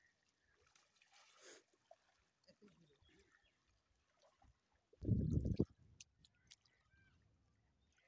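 Quiet open-air background, broken about five seconds in by a brief low rumble on the microphone, with a few faint clicks just after.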